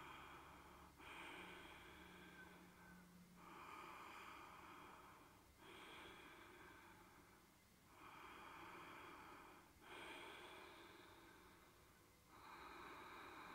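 Faint, slow human breathing: about seven even breaths in and out, each lasting about two seconds with a short pause between them.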